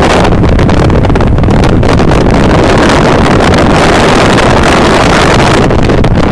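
Loud, steady wind buffeting the microphone over the rush of water and the engine noise of a KNRM rescue boat running at high speed.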